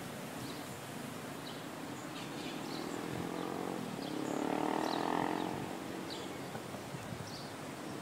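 Outdoor ambience with scattered short bird chirps, and a droning motor that swells up about three seconds in and fades out again by about six seconds.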